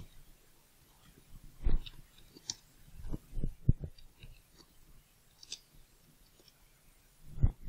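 Typing on a computer keyboard: irregular keystrokes with short pauses between them, and a few heavier key knocks about two, three and a half, and seven and a half seconds in.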